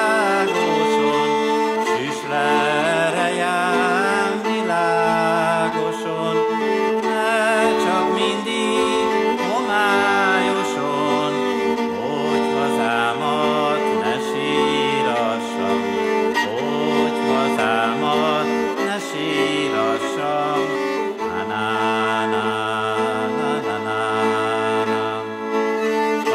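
A man singing a Hungarian folk song, accompanying himself on a Mezőség brácsa, a three-string folk viola, bowing sustained chords under the voice. In the second half a deeper held note joins the chords.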